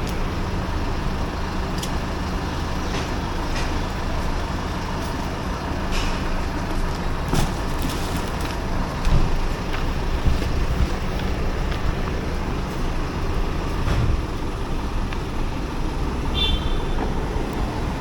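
Delivery truck engine idling with a steady low hum, with a few scattered knocks and bumps.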